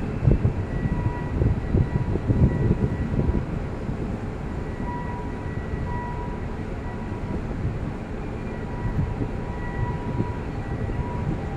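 Low, steady rumble of a container port, with wind buffeting the microphone in the first three seconds and a faint high tone sounding on and off.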